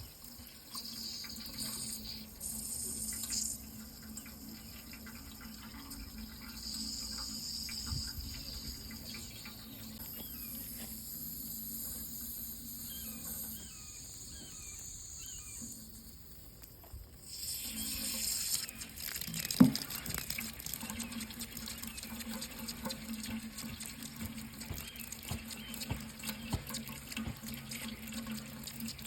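Water running steadily with a hissing, splashing sound that turns louder and brighter about two-thirds of the way in. A single sharp knock stands out a little later.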